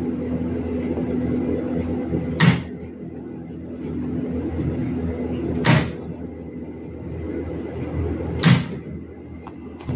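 A contactor in a direct-on-line motor starter (an ML3 contactor) clacks sharply three times, pulling in and dropping out as the start and stop buttons are pressed, over a steady electrical hum.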